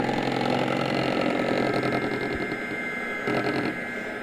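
Electric hand mixer running steadily as it beats lumpy cake batter, getting quieter about three seconds in.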